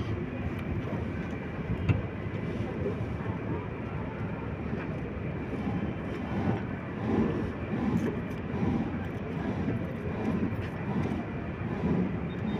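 Steady low background rumble, with faint murmured voices now and then.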